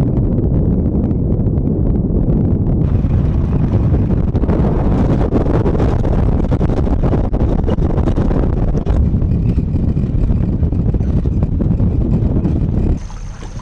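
Wind buffeting an outside-mounted microphone over the low rumble of a vehicle driving on a dirt road, with many small knocks and rattles. The noise drops off suddenly near the end.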